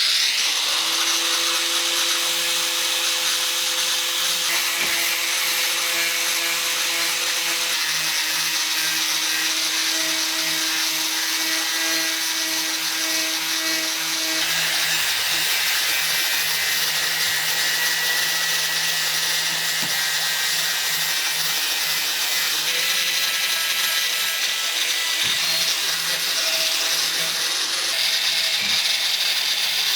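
Electric angle grinder with three stacked cut-off wheels grinding the edge of a rusty steel axe head, running steadily throughout. Its motor tone shifts a little in pitch now and then.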